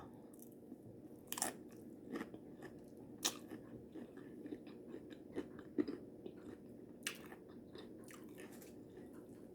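A person chewing a mouthful of taco salad with tortilla chips, faint wet chewing broken by irregular crunches, a handful of them sharper and louder.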